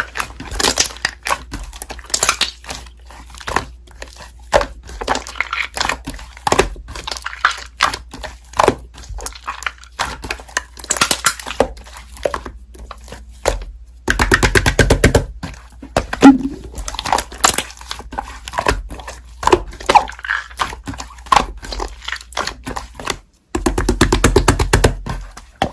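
Slime being squished and poked, giving many sharp clicks and pops, with denser runs of crackling about 14 seconds in and again near the end.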